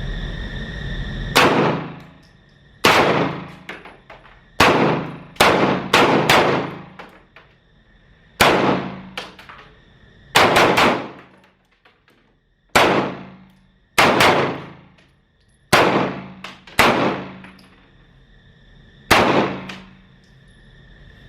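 Pistol shots from several shooters firing a timed drill, about fifteen at an irregular pace, sometimes two close together, each followed by a ringing echo that dies away.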